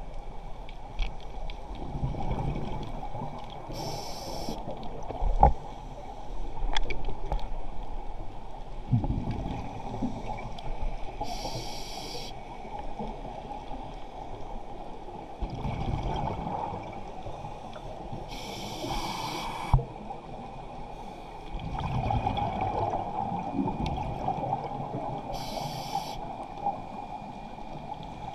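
Scuba regulator breathing underwater: four sharp hissing inhalations about seven seconds apart, each followed by a low bubbling exhalation, with a few sharp clicks in between.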